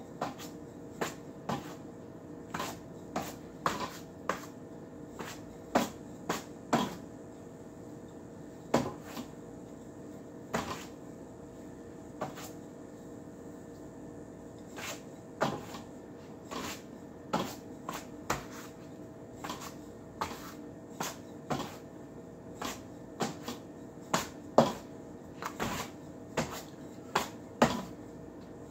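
Rattan ring knocking and clacking against the forearms and hands during ring drills: a string of short, sharp knocks at irregular spacing, roughly one or two a second.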